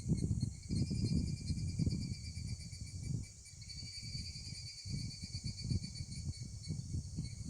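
Summer insect chorus of crickets or cicadas: a steady, finely pulsing high-pitched buzz. Underneath it runs an irregular low rumble on the microphone.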